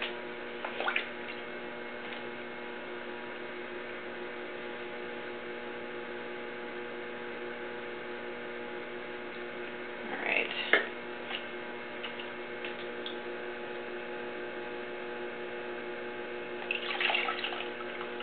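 Electric potter's wheel running with a steady hum, spinning wet porcelain clay. Brief wet sounds of hands, sponge and water on the clay come about a second in, around ten seconds in, and near the end.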